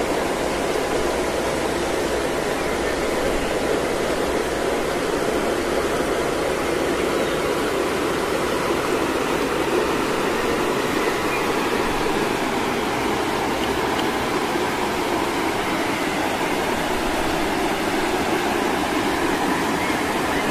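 Steady rushing of flowing water from a stream or small waterfall, an even noise with no breaks.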